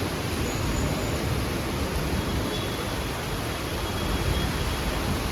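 Heavy rain falling steadily in strong wind, an even rushing hiss.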